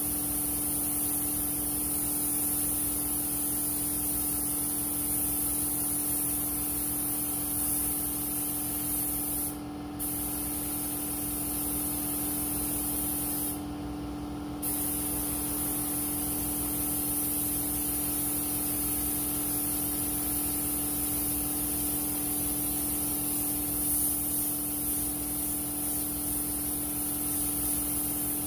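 Compressed-air paint spray gun hissing steadily as it sprays engine paint onto an engine block. The spray stops briefly twice, near ten and fourteen seconds in, as the trigger is let go. A steady low hum runs underneath.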